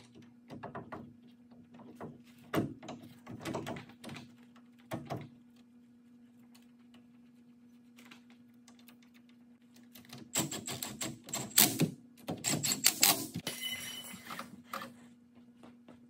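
Metal clicks, knocks and clunks as a new front wheel hub and bearing assembly is slid onto the axle's splined shaft and seated in the steering knuckle. A few separate knocks come first, then a quiet spell, then a quick run of clattering near the end, over a faint steady hum.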